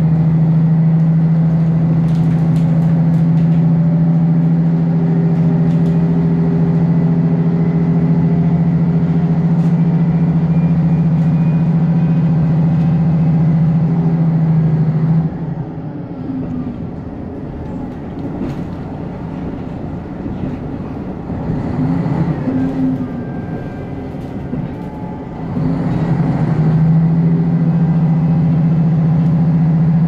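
KiHa 54 diesel railcar running, heard from inside the car: a steady low engine drone under power. About halfway through the drone cuts off and the car runs on more quietly with only the running noise of the train. The drone comes back a few seconds before the end.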